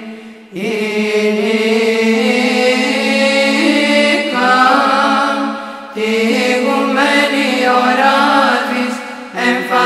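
Greek Orthodox Byzantine chant: long, drawn-out melismatic vocal phrases sung over a steady low held note. There are short breaks between phrases about half a second in, around six seconds and just after nine seconds.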